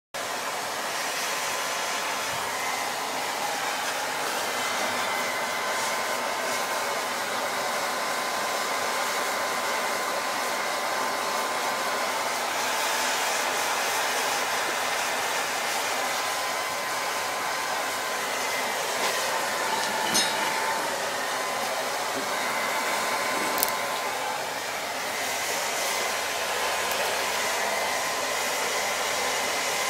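Small furnace running under forced air: a steady rushing blast of air with a faint steady motor whine. Two sharp clicks about two-thirds of the way through.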